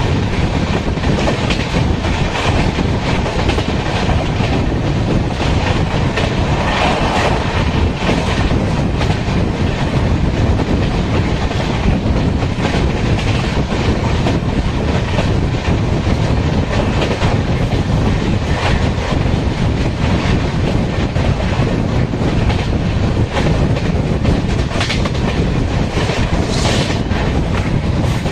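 Karaikal Express passenger train running at speed, heard from beside its coaches: a steady loud rumble of wheels on rail, with rhythmic clickety-clack over the rail joints.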